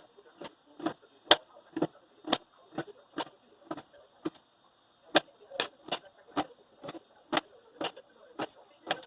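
Kitchen knife knocking on a cutting board with each cut as raw piau fillet is sliced thin, about two cuts a second, with a short pause about halfway through.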